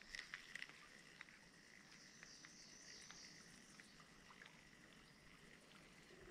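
Near silence with a faint, steady, high-pitched insect chorus. A few soft ticks fall in the first second.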